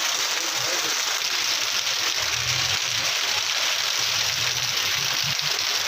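Torrential rain pouring down on a street, a loud steady hiss. A vehicle's engine passes close by in the middle.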